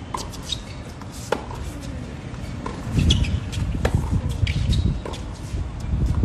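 Tennis rally on a hard court: sharp pops of the ball off the rackets and court about every second, with short high squeaks of shoes. A low wind rumble on the microphone swells from about halfway through and is the loudest sound.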